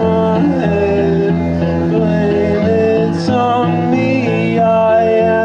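Acoustic guitar strummed and picked live, with a man singing over it.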